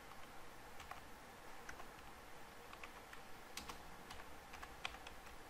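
Faint, sparse keystrokes on a computer keyboard as a line of text is typed, with a quicker run of keys in the second half.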